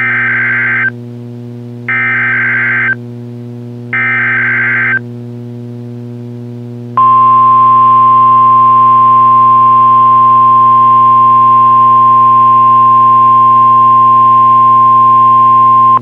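Emergency Alert System SAME data header sent three times as one-second bursts of buzzy digital screech, about a second apart. After a two-second pause comes the steady 1050 Hz NOAA Weather Radio warning alarm tone, held for about nine seconds, with a low steady hum from the radio underneath throughout.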